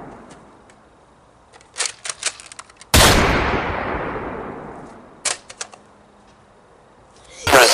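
A loud gunshot sound effect with a long echoing tail, fired once about three seconds in, with a few quick sharp clicks before and after it. Music starts right at the end.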